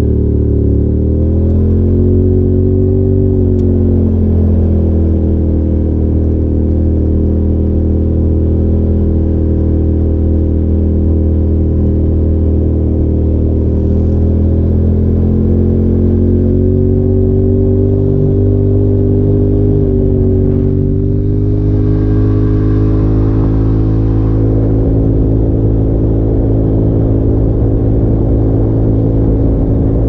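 Polaris RZR Turbo side-by-side's turbocharged engine running at speed, its pitch rising and falling with the throttle, with a brief let-off about two-thirds through.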